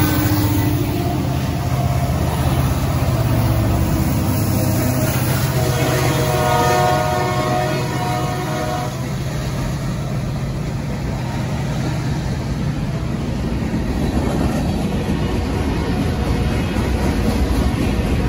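Diesel freight locomotives rumbling past at close range. About six seconds in, a multi-tone locomotive horn sounds for roughly three seconds. The rest is the steady rolling noise of tank cars and covered hoppers going by on the rails.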